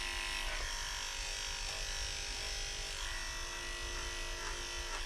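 Corded electric pet clippers running with a steady hum, shaving a mat out of a long-haired cat's coat.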